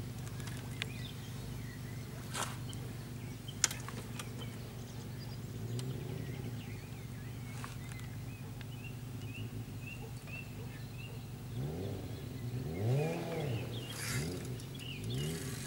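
Outdoor ambience under a road bridge: a steady low hum, with small birds chirping. There are two sharp clicks a few seconds in, and near the end a few low sounds that rise and fall in pitch.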